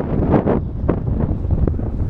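Wind buffeting the microphone of a camera on a moving bicycle, a heavy low rumble with a few short clicks and knocks mixed in.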